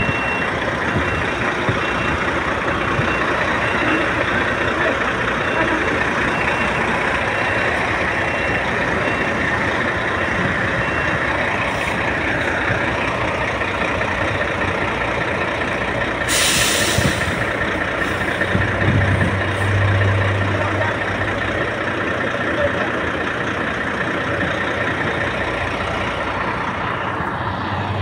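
Sany tractor-head truck running, with a short air-brake hiss a little past halfway. An evenly repeating beep sounds over the first ten seconds or so.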